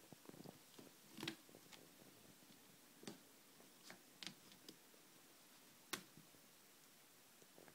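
Faint, scattered ticks and light scratches of a kitten's claws and paws catching on the mesh netting and plastic frame of a drying rack. There are about five sharp clicks a second or more apart in a quiet room.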